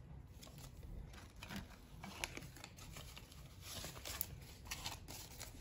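Faint rustling and crinkling of paper banknotes and a clear plastic cash envelope being handled, with a few soft clicks.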